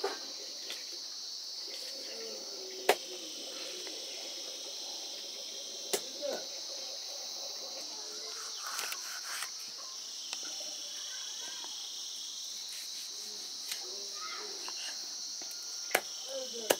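Large knife chopping buffalo skin and bone on a wooden log chopping block: single sharp chops about three and six seconds in, and two more near the end. A steady chorus of chirring insects runs underneath.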